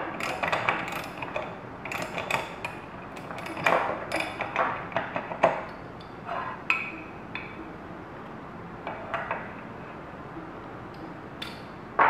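Steel ratchet and bolt extractor socket clicking and clinking against a bolt head as they are worked and pulled off. Irregular sharp metal clicks come thick in the first half, then a few scattered clinks, with one loud clink near the end.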